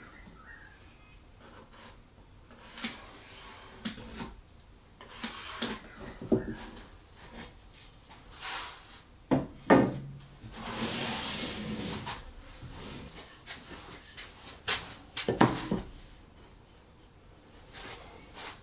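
Pieces of pine being set in place on a wooden board jig: wood knocking on wood and sliding across it, with several sharp knocks and stretches of scraping in between.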